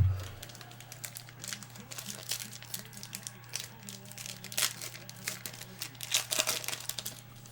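Foil trading-card pack wrappers crinkling and tearing as packs are opened, in irregular crackly bursts over a steady low hum.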